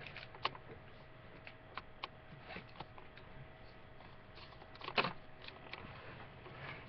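Handling noise from a webcam being moved by hand: scattered small clicks, taps and rustles, with one louder knock about five seconds in, over a faint steady tone.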